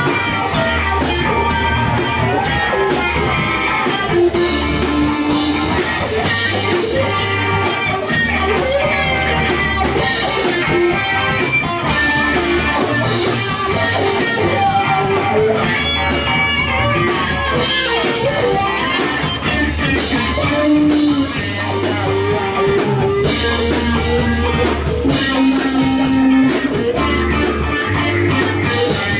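Live rock band playing an instrumental passage: a Stratocaster-style electric guitar plays a melodic lead with bending notes over bass and drums.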